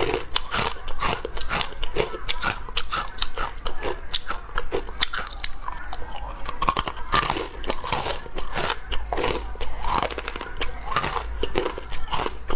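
Close-miked biting and chewing of crunchy corn crisp bars made of pressed puffed corn, with dense rapid crackling crunches throughout.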